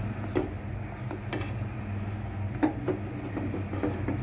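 Silicone spatula stirring a thick paste in an aluminium pot, scraping and knocking against the pot several times, over a steady low hum.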